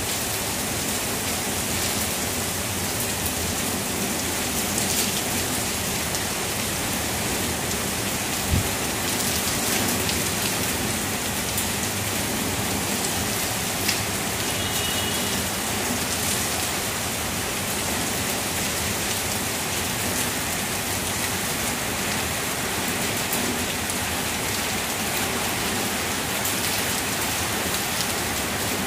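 Steady heavy rain pouring down through tree foliage: an even hiss of falling water with scattered louder drop hits, one sharp hit about eight seconds in.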